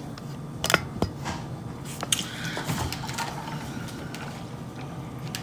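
Handling and eating noises at a table: a few sharp clicks, with light rustling and scraping.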